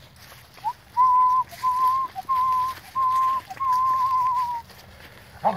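A person whistling a string of about six short, steady notes at one pitch, the last one longer with a slight waver.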